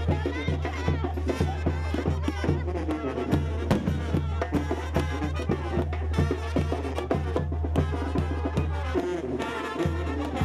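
Brass band music with drums and a deep bass line, keeping a steady, even beat.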